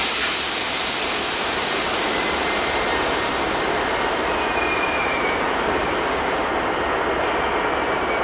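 Hitachi Intercity Express Train approaching along the platform: a steady rushing rumble of the moving train, with a faint thin squeal from the wheels about halfway through.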